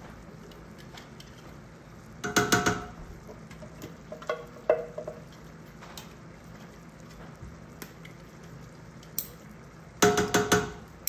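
A spatula scraping and knocking inside a tin can as it is emptied into a stainless steel pot, the can ringing with each knock. Two loud bursts of clattering, about two seconds in and near the end, with a few softer knocks and scrapes between.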